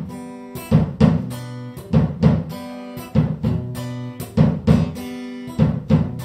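Live band playing a song's instrumental opening: strummed acoustic guitar chords over a steady drum beat, with the hits often coming in pairs.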